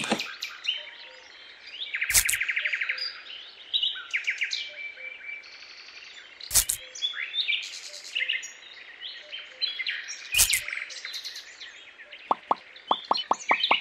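Birds chirping and tweeting throughout. A few sharp taps come about two, six and a half and ten seconds in, and a quick run of about ten clicks near the end.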